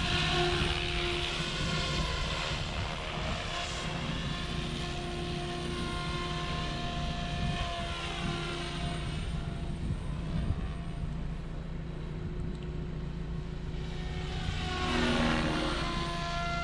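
Electric RC helicopter (OMPHOBBY M4 Max) in flight: a steady whine from the motor and spinning rotors over a low rumble. The pitch sweeps up and down as it flies past, most clearly near the end.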